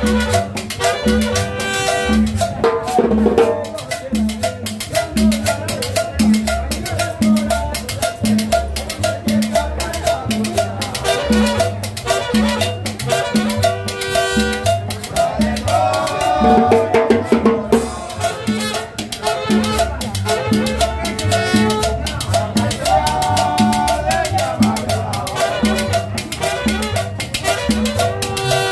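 Live tropical band playing salsa-style music, with an upright bass and conga drum keeping a steady beat under a melody line.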